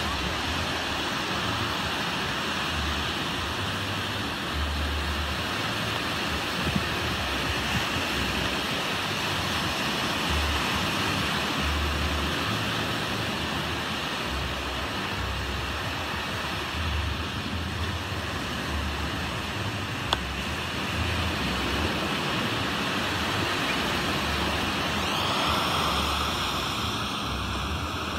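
Ocean surf breaking and washing up a sandy beach: a steady rush of waves, with low irregular rumbles of wind on the microphone.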